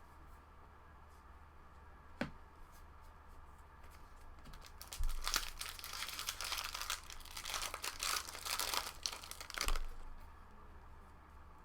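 Foil trading-card pack wrapper being torn open and crinkled, a crackly stretch of about five seconds beginning about five seconds in, with a single click a couple of seconds before it.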